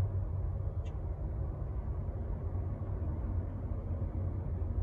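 Steady low rumble of a parked semi truck idling, heard inside the cab, with one faint click about a second in.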